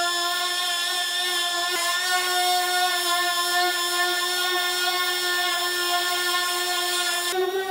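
Electric finish sander running steadily with 320-grit paper, a high even whine that shifts slightly in pitch near the end.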